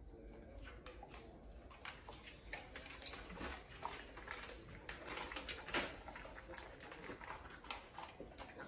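Faint scattered clicks and rustles, with one sharper click about six seconds in: dogs' claws tapping as they shift about on a laminate floor, and a man rummaging through a pantry for snacks.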